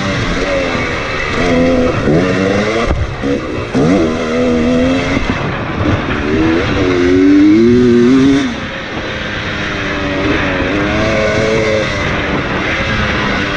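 KTM 300 two-stroke dirt bike engine running hard under the rider, its pitch climbing and dropping over and over as the throttle is worked through the track's straights and turns.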